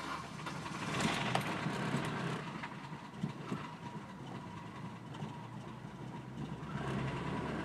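1997 Saturn SC2's 1.9-litre four-cylinder engine on a cold start, getting louder about a second in and then running rough at idle, with a few sharp knocks. The owner is trying to diagnose an engine knock that began after the car was first taken to higher revs.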